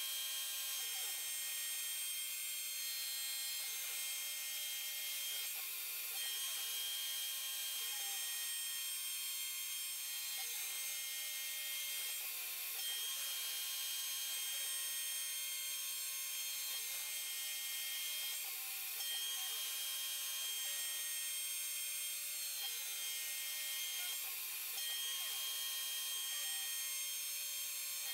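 C-Beam-based CNC router milling a pocket in a metal block: the spindle whines steadily with the hiss of the end mill cutting. Beneath it the stepper motors give stepping tones that change pitch as the axes move, in a cycle that repeats about every six seconds as the tool makes its passes.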